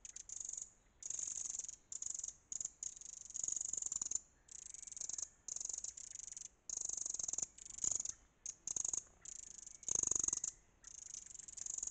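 Eurasian wren's alarm call: a long run of short, high-pitched bursts, each under a second, with brief gaps between them, the wren scolding a fox close to its nest. About ten seconds in comes one louder burst that also reaches lower in pitch.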